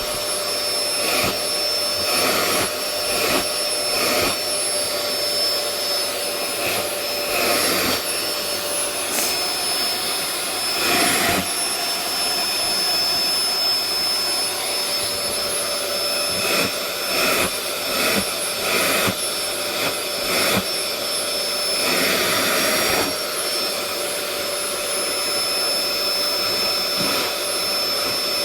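Vacuum cleaner running steadily with a high whine, its suction sound rising and falling irregularly as the nozzle is drawn over a cat's fur.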